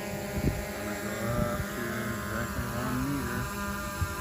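DJI Mavic Air 2 quadcopter's motors and propellers running at a hover, a steady multi-toned whine whose pitch wavers a little through the middle. There are two brief thumps, one shortly after the start and one near the end.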